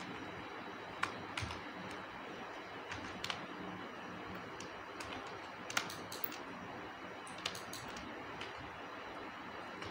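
Irregular, scattered clicks of computer keyboard keys and a mouse being pressed, over a steady background hiss.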